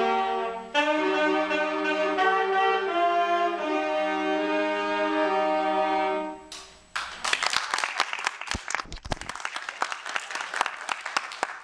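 Student saxophone and brass ensemble playing sustained chords, the last chord held and cut off about six and a half seconds in. Audience applause follows to the end.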